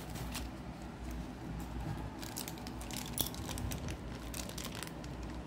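Clear plastic packaging bag crinkling and rustling as it is handled, with irregular small crackles that are densest in the middle.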